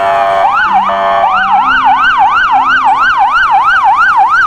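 Polish police car sirens: several overlapping wails for about the first second, then a fast yelp sweeping up and down about four times a second.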